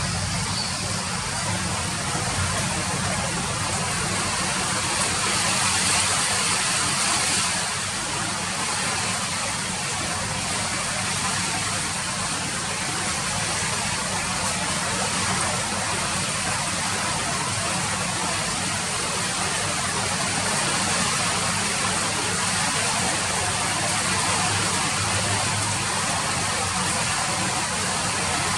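Steady rain falling: an even, unbroken rushing noise.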